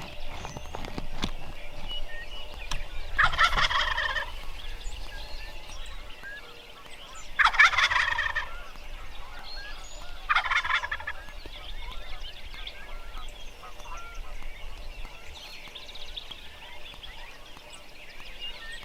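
Wild turkey gobbling: three loud gobbles a few seconds apart and a fainter one later on, with small songbirds chirping in the background.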